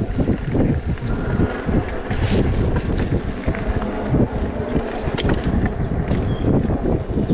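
Wind rushing over the microphone of a moving bike, a steady low rumble with scattered clicks and rattles.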